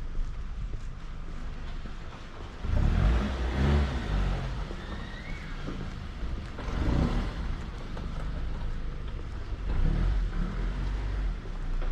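Cars passing on a street, three in turn, each rising and fading over a second or two against a steady low traffic hum.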